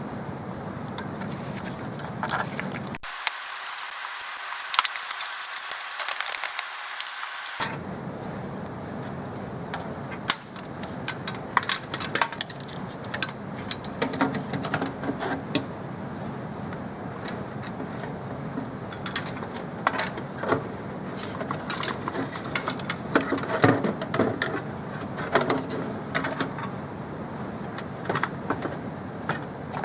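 Hands working on computer hardware: irregular small clicks, clinks and rattles of metal parts and screws, over a steady background noise.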